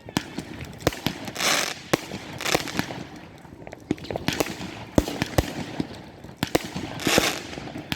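Fireworks going off: many sharp bangs at irregular intervals, mixed with several short hissing bursts.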